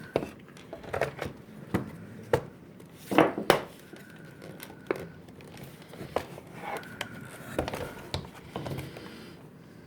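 Scattered clicks, taps and plastic rattles from handling the Shark vacuum's taken-apart plastic base and its screws. The loudest knocks come about three seconds in.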